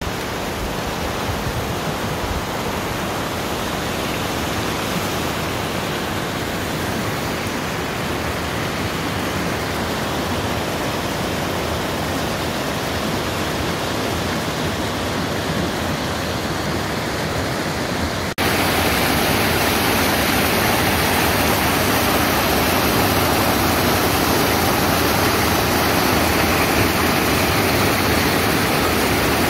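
Steady rush of a mountain stream cascading over boulders as a small waterfall. About two-thirds of the way through it cuts suddenly to a louder, brighter rush of white water.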